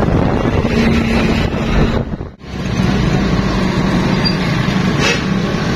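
A vehicle engine hums steadily under road and traffic noise while riding along a road, with wind rushing over the microphone. The sound briefly cuts out about two and a half seconds in.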